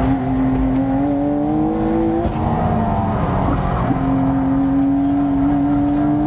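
McLaren 750S's twin-turbocharged 4.0-litre V8 running under light load. Its pitch climbs slowly, drops about two seconds in as it shifts up, and then climbs again.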